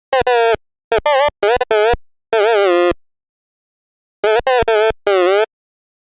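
Short synthesized, voice-like tones with sliding pitch, coming in quick bursts in three clusters with dead silence between them, like an electronic or heavily pitch-corrected vocal sample.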